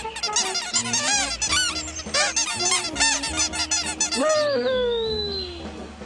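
Cartoon birds squawking and chattering: a rapid jumble of short, arching cheeps over a light music score with a repeating bass line, then one long squawk that slides steadily down in pitch about four seconds in.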